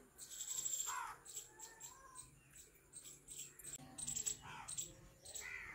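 Faint, light metallic clinks and rattles of steel dishes being handled, over a scatter of short high chirps.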